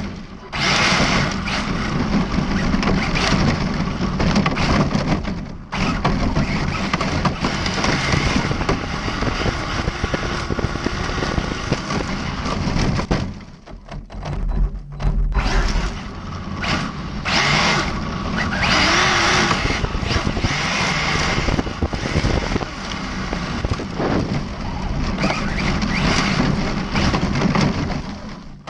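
ARRMA Felony 1/7-scale RC car with a brushless electric motor driving over gravel and dirt: a steady, loud rush of tyre, gravel and motor noise. It drops out briefly about six seconds in and again for a couple of seconds around the middle.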